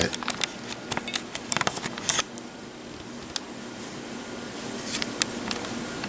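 Hampton Bay Genoa ceiling fan running on high, with a soft, steady whoosh of moving air and no audible motor noise. Scattered clicks and taps sound over it, most of them in the first two seconds.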